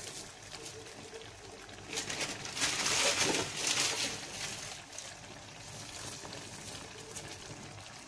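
Chicken kofta curry gravy sizzling and simmering in a pan, with the ghee risen to the surface. The hiss grows louder for about two seconds in the middle.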